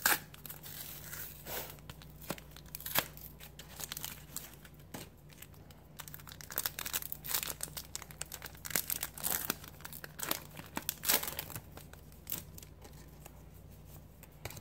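Foil Pokémon TCG booster pack being torn open and its wrapper crinkled, in irregular crackles and rustles, busiest near the start and again through the middle.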